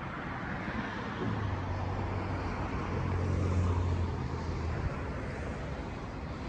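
Amtrak Siemens ACS-64 electric locomotive and its train moving away along the track, a steady rumble that eases off slowly. A low steady hum joins it for about three seconds in the middle.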